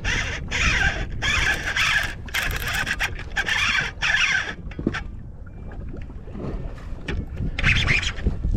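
Fishing reel buzzing in repeated short bursts as a big fish is fought, the bursts close together at first, then a quieter spell and one more burst near the end. Wind rumbles on the microphone throughout.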